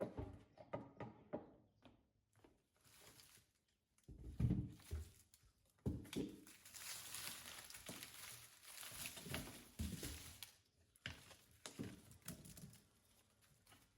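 Quiet handling sounds of objects being moved and set down: a run of light knocks, a dull thump about four and a half seconds in, then several seconds of hissing rustle dotted with small taps.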